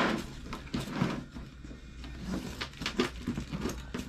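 Hands working at a hard-shell suitcase's zip and shell: a run of short scratchy rasps and clicks.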